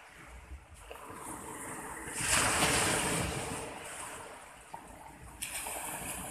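Sea waves breaking and washing up a sandy beach: a surge of surf swells about two seconds in and fades away, and another wash begins near the end.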